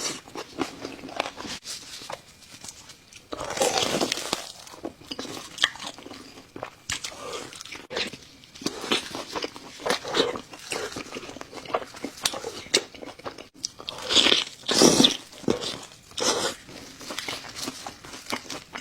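Close-miked mukbang eating: a person biting and chewing food with wet smacking and crunchy bites, the loudest bites coming about four seconds in and in a cluster later on.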